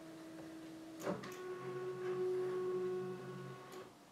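The motorised pop-up up-firing speaker on an LG W7 wallpaper TV's sound bar rises with a steady whirring whine. There is a click about a second in, and the whine stops shortly before the end as the pod reaches full height.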